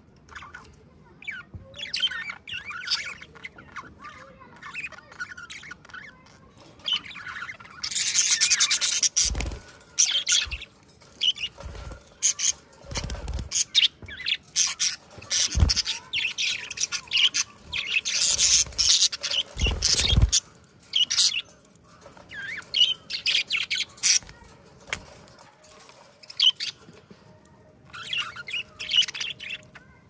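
Two budgerigars chattering and warbling: a busy stream of short chirps, warbles and squawks, loudest about a quarter and again about two thirds of the way through. A few brief low thumps come in between.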